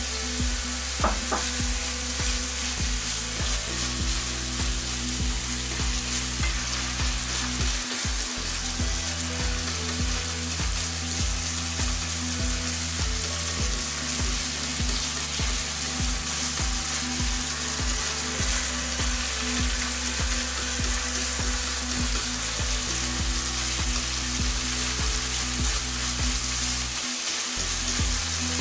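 Minced pork sizzling steadily in a nonstick frying pan as it is stir-fried with chopsticks, with the dark soy, fish and oyster sauce mixture being stirred through it.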